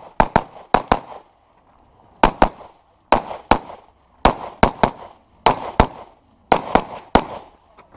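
Rapid pistol fire: about sixteen sharp shots, mostly in quick pairs, with a pause of about a second early on before the shooting resumes.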